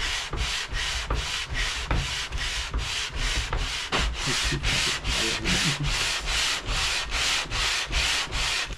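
Aluminium cylinder head of a Nissan SR20DET being slid face-down back and forth on 120-grit sandpaper laid on glass and wetted with ATF: a rhythmic sanding rasp, about three strokes a second. The head's deck is being flattened so the head gasket will seal.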